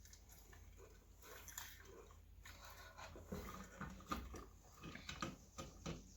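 Faint handling noises of small parts being worked by hand: scattered light clicks, taps and rustles, busier in the second half.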